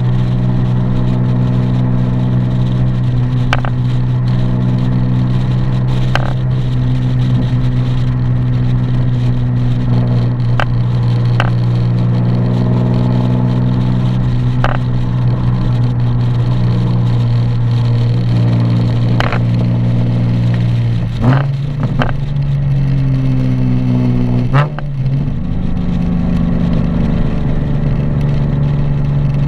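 Nissan 370Z's 3.7-litre V6 engine and exhaust running at a steady pace on the move, with a few brief sharp knocks scattered through; the car has a rattle the owner is trying to trace. The engine note shifts twice in the last third.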